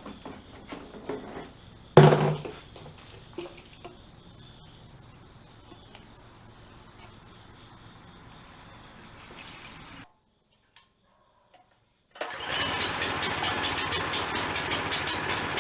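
A brand-new small gasoline engine on a log splitter starts up and runs steadily from about twelve seconds in, with a fast, even pulsing. Before that there is one loud clunk about two seconds in and low background noise, cut off by a short silence.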